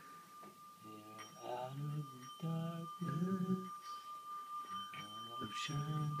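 A man singing long held low notes, with a thin steady high tone behind him throughout and a second, higher tone joining about a second in.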